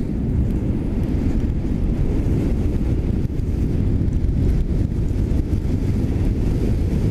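Steady wind rush buffeting the microphone of an electric sportbike riding at close to 50 km/h. No motor note stands out.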